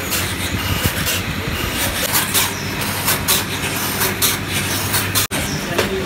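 Belt-driven lathe running steadily while brass connector parts are worked in it, with frequent irregular sharp metallic clicks and clinks over the hum. The sound drops out for an instant just past five seconds.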